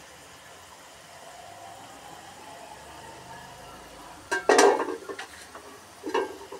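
Potato fries deep-frying in oil in a metal wok, the oil sizzling steadily. A little past halfway a metal skimmer clatters and scrapes against the pan while stirring, and again briefly near the end.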